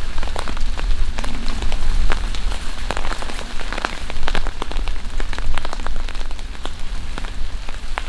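Rain pattering on a grey plastic tarp spread on the ground: many sharp, irregular drop ticks over a steady low rumble, with the tarp rustling as it is pulled out.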